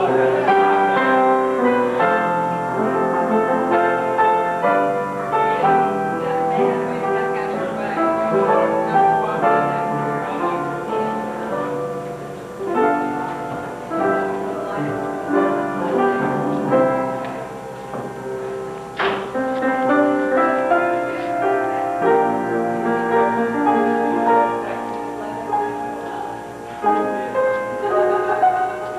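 Slow instrumental music led by piano, with held notes throughout. A single sharp click sounds about two-thirds of the way through.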